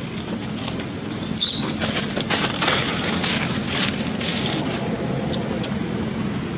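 Dry fallen leaves rustling and crunching, with a sharp rustle about a second and a half in and a denser stretch of crunching from about two to four seconds in, over a steady low rumble of wind on the microphone.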